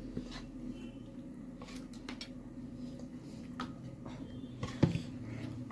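Metal fork and spoon clicking and scraping lightly against a ceramic bowl while cutting up dumplings in soup, over a steady low hum. One louder knock about five seconds in.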